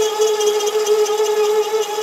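Sieg SC4 metal lathe running with a steady whine while a grooving tool cuts a ring groove in a cast iron piston.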